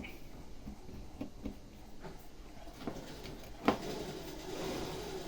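Small clicks and taps of hand tools working on an opened Vivo Y17 smartphone's internals, with one sharper click a little over halfway through.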